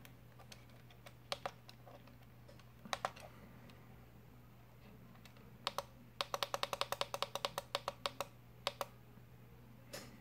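Plastic navigation buttons on a Jumper T12 radio transmitter clicking as its menus are paged and scrolled: a few single presses, then a quick run of about ten clicks a second for two seconds, then a few more.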